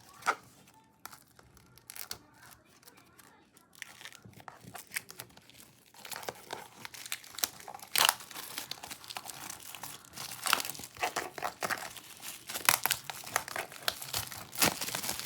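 Album packaging being torn and crinkled by hand: scattered crackles at first, then a dense run of crinkling and tearing from about six seconds in.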